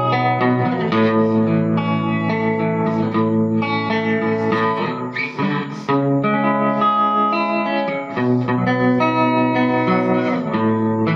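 Electric guitar played through a handmade 18-watt tube guitar amplifier, the Meteor "Taco Wagon". It plays clean chords and single notes that ring on with reverb, in a 1950s/60s style.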